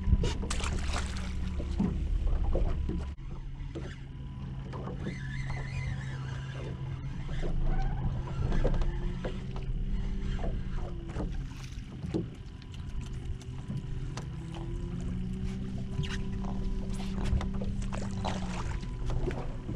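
Sounds aboard a small fishing boat on calm open water: water lapping at the hull and short knocks of handling over a steady low hum. A deeper part of the hum stops about three seconds in.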